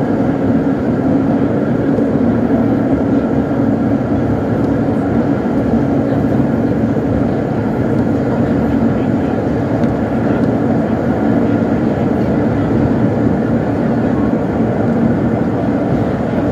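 Vintage R1/R9 New York subway cars running at speed through a tunnel, heard from inside the car: a loud, steady rumble of wheels on rail and running gear.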